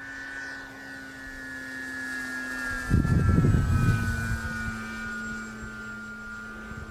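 Scratch-built Yak 54 RC model airplane's motor and propeller running in flight, a steady whine whose pitch slowly falls as it passes. About three seconds in, a loud low rumble, like wind buffeting the microphone, briefly covers it.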